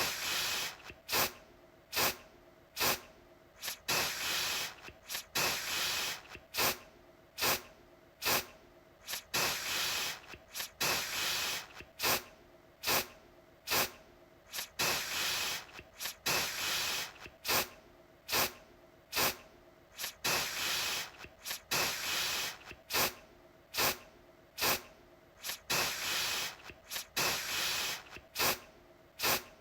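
Aerosol deodorant spray let off in short bursts in quick succession, a little more than one a second, each a sharp hiss that fades quickly.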